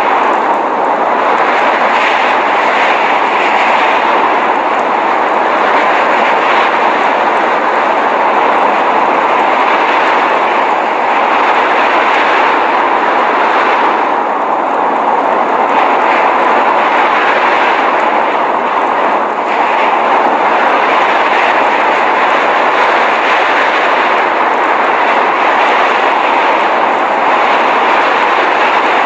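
Steady, loud rushing noise of a blizzard, swelling and easing slightly, with no distinct events.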